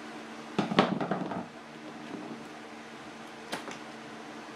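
A quick clatter of knocks and clicks just under a second in, and later a single sharp click. It is a screwdriver and hand knocking against the metal window frame of a 1963 Bristol Lodekka double-decker bus while the pull cord is worked out of the rubber window gasket.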